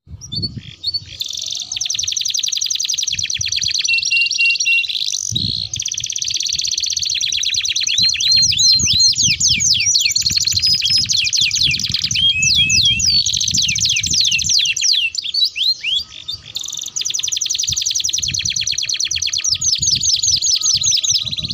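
Domestic canary singing long rolling trills: fast, evenly repeated high notes in long unbroken runs. The song stops briefly twice and has a few swooping notes in the middle.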